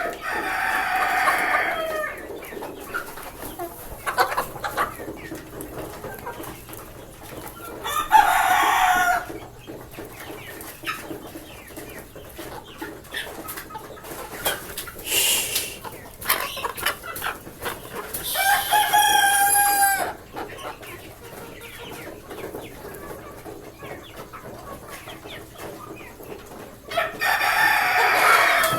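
Backyard desi chickens clucking, with roosters crowing about four times, each crow lasting a second or two, and one short shrill call midway.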